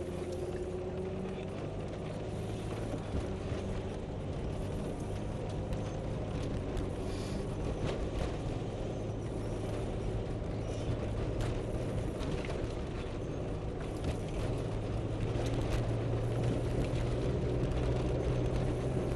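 Four-wheel-drive truck's engine running at low trail speed on a rough dirt track, with tyre noise and scattered knocks and rattles as it goes over bumps. The engine note grows louder and rises a little near the end.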